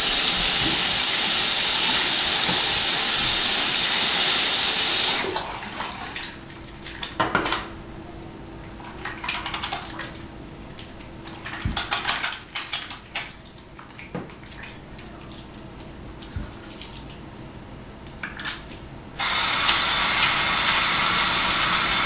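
Bathroom faucet running into a sink, shut off about five seconds in. Then quieter wet rubbing of soapy hands with small scattered clicks. Near the end the tap is turned back on and runs steadily.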